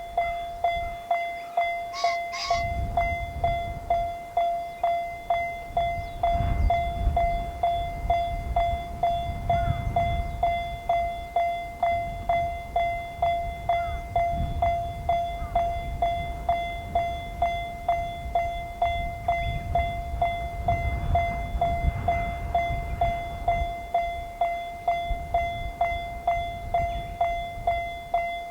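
Japanese level crossing alarm bell ringing its steady electronic "kan-kan" at nearly two strokes a second, each stroke a single pitched clang. A low rumble swells twice beneath it, and there are two short high notes about two seconds in.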